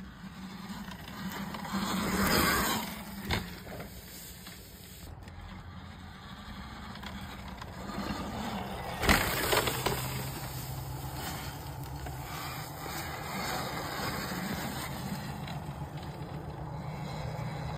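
Talaria electric dirt bike riding along a dirt trail, its sound swelling louder about two seconds in and again about nine seconds in. Two sharp knocks come near three and nine seconds in.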